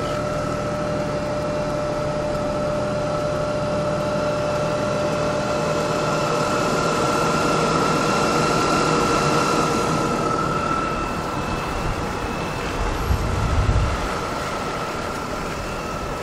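BMW 520i E39's 2.2-litre inline-six idling steadily, with a thin high steady whine over the running that swells a little in the middle. A short low thump comes near the end.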